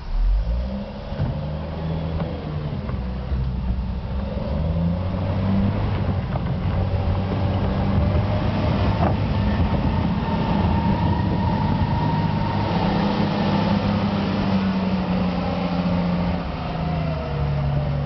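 Vehicle engine working, revving up just after the start, running at shifting speed and easing down a little near the end.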